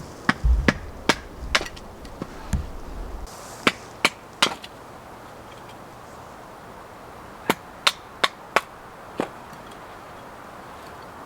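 Wood being chopped: about fourteen sharp chopping strikes in three bunches, with a couple of heavier thumps among the first ones.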